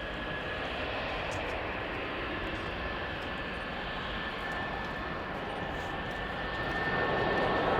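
Jet airliner engines: a steady rush with a thin high whine that grows louder near the end.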